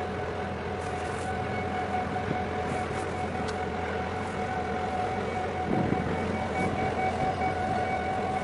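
Steady mechanical hum of ship engines with a constant whine, over wind and water noise.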